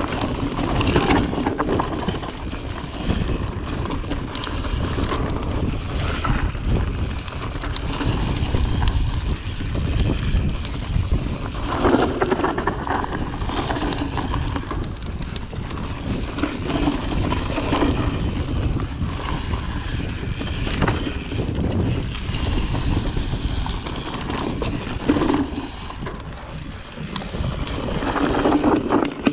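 Wind buffeting the action-camera microphone while a mountain bike rolls along a dirt singletrack, with tyre noise and scattered knocks and rattles from the bike over bumps. The rushing swells up and down every few seconds.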